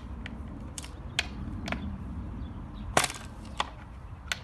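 Sharp metallic clicks and knocks of a wrench tool on a chainsaw's bar nuts as they are loosened: several irregular clicks, the loudest about three seconds in.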